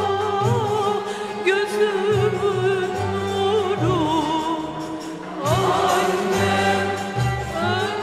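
A woman singing a slow Turkish classical song (şarkı) in makam hicazkâr, with long held notes ornamented with vibrato and turns, over instrumental accompaniment and a stepping bass line. The sound dips briefly about five seconds in, then a new phrase slides up.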